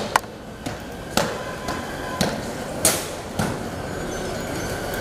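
A series of sharp knocks or thumps, about five of them, roughly a second apart, some with a short ring after them; they stop a little over three seconds in.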